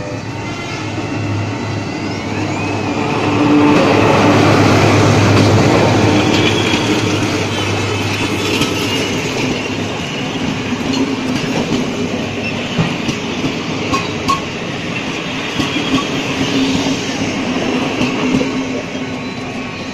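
Diesel passenger train passing close by: the locomotive's engine hum rises and peaks a few seconds in, then the carriages rumble past with the wheels clicking sharply over the rails.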